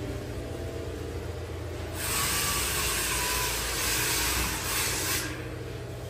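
An orbital sander runs against the filler and primer on a car's rear quarter panel. It starts about two seconds in as a loud, even hiss and stops after about three seconds, over a steady low hum.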